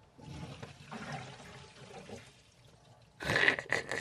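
Water draining from a full sink through a PVC drain pipe and flexible hose as the drain's cutoff valve is opened. A faint trickle comes first, then a louder rush and gurgle of water from about three seconds in.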